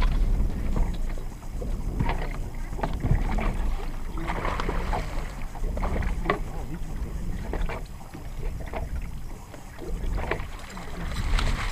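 Wind rumbling on the camera microphone in an open fishing boat, with scattered knocks and splashes as a hooked muskie is fought at the side of the boat.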